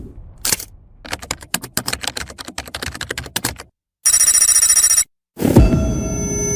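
A string of separate sound effects from an editing pack: a single click, then a rapid run of clicks for about three seconds, a second of bright, high ringing, and then a hit that leaves a ringing tone hanging on.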